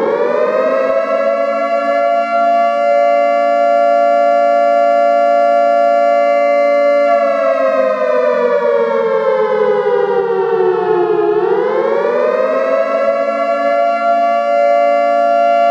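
Civil defense siren at full wail, a steady two-note chord that finishes winding up about a second in. About seven seconds in it slowly sags in pitch, bottoms out near eleven seconds, then winds back up and holds steady.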